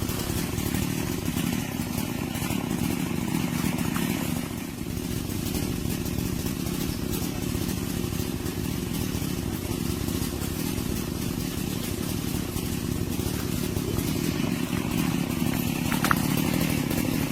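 Chainsaw engine idling steadily at low revs.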